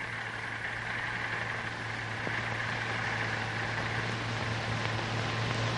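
Tractor drawing a disc stubble plough: steady machine noise, a low hum under a hiss, slowly getting louder.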